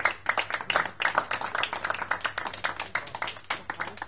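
Applause: many hands clapping in a quick, irregular patter after a song, thinning out near the end.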